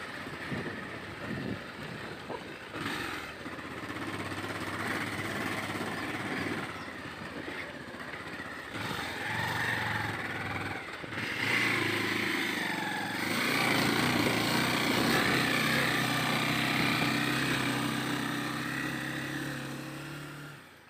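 Motorcycle engine running steadily while riding a rough dirt road, with knocks and rattles from bumps in the first few seconds. The engine gets louder about two-thirds of the way through, and the sound fades out at the very end.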